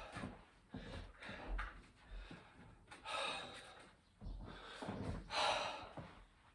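A man breathing hard and gasping from exertion while doing burpees, with loud rushing breaths about three and five seconds in. Dull low thuds of his body moving against the floor come between the breaths.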